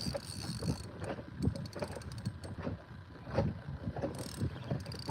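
Water slapping irregularly against a fishing kayak's hull, with short spells of a fishing reel's clicking and whirring as the line is worked against a hooked fish.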